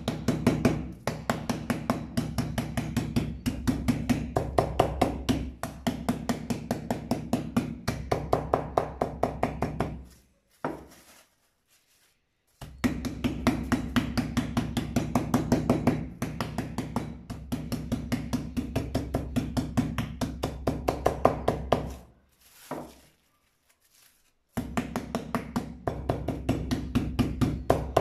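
A flat meat pounder beating a thin slice of roe deer steak flat through plastic film on a plastic cutting board. The blows come quickly and evenly, about four a second, in long runs that pause twice.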